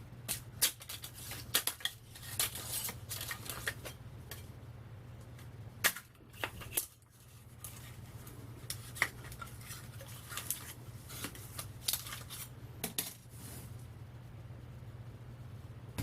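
Thin steel transformer core laminations clinking and rattling as they are pulled from the iron core and laid on the stack, in irregular bursts of sharp metallic clicks. A steady low hum runs underneath.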